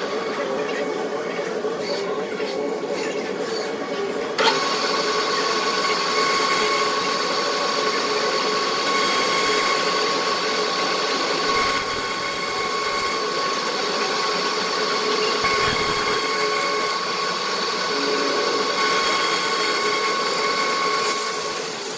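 Metal lathe running and turning a part, a steady machine hum with a constant high whine. A short sharp click comes about four seconds in, after which the running sound is a little louder and brighter.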